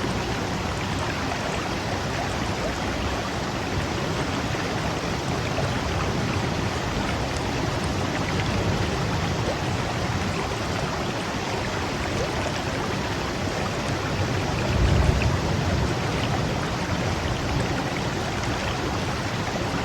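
Water rushing steadily, an even wash of sound without pauses. A low rumble swells briefly about fifteen seconds in.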